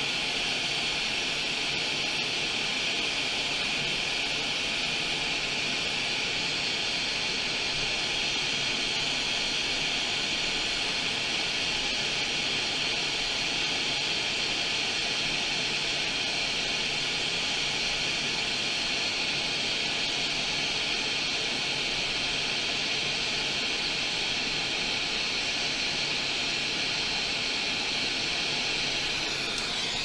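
A steady, fairly high airy hiss that cuts off near the end.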